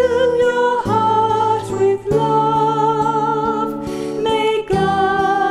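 Women singing a slow blessing song, holding long notes with vibrato over a soft instrumental accompaniment.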